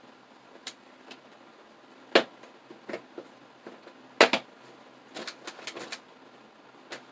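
Hard plastic twisty puzzle clicking and clacking as it is handled: scattered sharp clicks, two louder clacks about two and four seconds in, and a quick run of clicks a little after five seconds.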